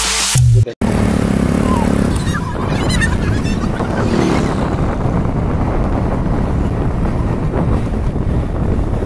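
Music cuts off under a second in; then a motorcycle engine runs along with road and wind noise, heard from on the moving motorcycle.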